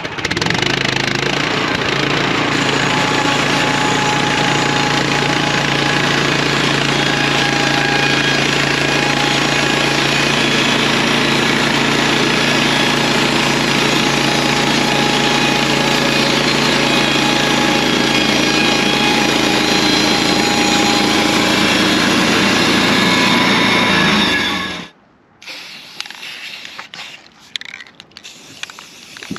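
Engine-driven sawmill running steadily while re-sawing oak 2x4s to true them up, then stopping abruptly about 25 seconds in.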